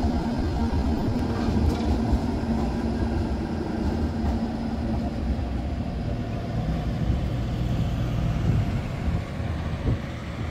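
Tram running with a steady low rumble, a faint hum fading out about three seconds in.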